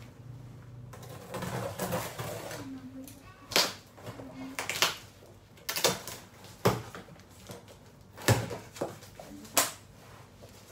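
Cardboard boxes being handled and rummaged through: rustling and scraping, then about half a dozen sharp knocks of cardboard against cardboard spread a second or so apart.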